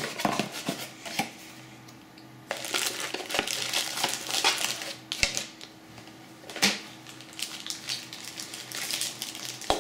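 Cardboard box opened by hand, then small plastic zip bags rustling and crinkling as the contents are taken out and handled. A few light knocks and clicks come in between, with the longest stretch of rustling in the middle.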